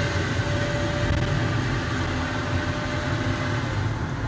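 Car driving along an unpaved road, heard from inside the cabin: a steady rumble of engine and tyre noise.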